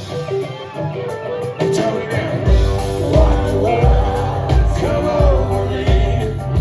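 Live rock band playing with singing. The kick drum and bass drop out for the first couple of seconds, then the steady beat comes back in.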